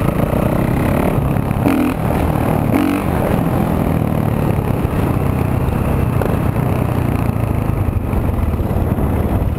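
Kawasaki KX450F's single-cylinder four-stroke engine running as the bike is ridden along, a steady rumble with brief changes in pitch about two and three seconds in.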